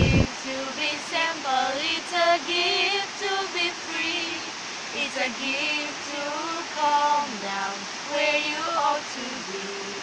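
Two teenage girls singing unaccompanied, over the steady rush of a river. A burst of wind noise on the microphone cuts off suddenly at the very start.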